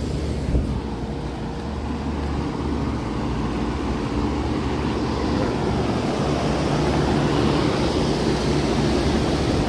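Heat pump outdoor units running: fans whooshing over a steady low compressor hum, growing slightly louder toward the end.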